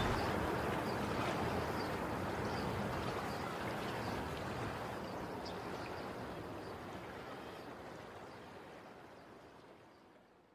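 Outdoor ambience at a seaside cliff top, a steady rush of wind and sea noise, fading out slowly to silence at the end. Faint high chirps repeat through the first half.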